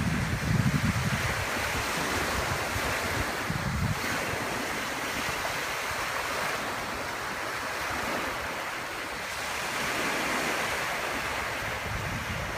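Small waves breaking and washing up a sandy beach: a steady surf hiss. Wind buffets the microphone in the first second or so.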